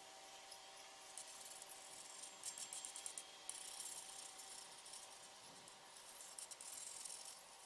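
Faint scraping and small clicks of a glue tube's tip smearing adhesive along the rim of a subwoofer's speaker basket, in two spells, over a faint steady hum.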